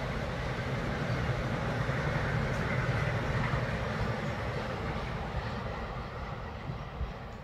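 Freight train of loaded double-deck car-transporter wagons rolling past, a steady noise of wheels on rail that eases off near the end as the last wagons go by.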